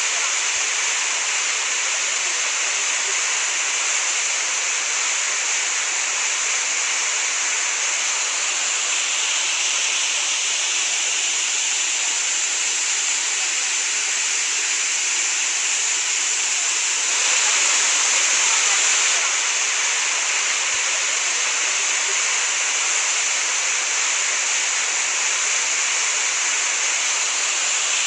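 Waterfall plunging into a rock gorge: a steady rush of falling water, a little louder for about two seconds past the middle.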